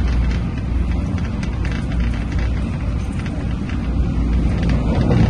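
MTR Tung Chung line CAF electric train running: a steady low rumble with faint scattered clicks.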